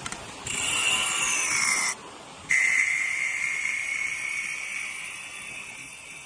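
CNC wood lathe cutting a turning wooden workpiece, a high-pitched whine in two passes. The first pass falls in pitch and stops abruptly, and after a short break a steadier whine starts and slowly fades.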